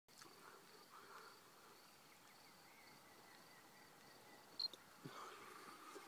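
Near silence: faint outdoor ambience with a thin, high, pulsing trill throughout and a brief sharp chirp about four and a half seconds in.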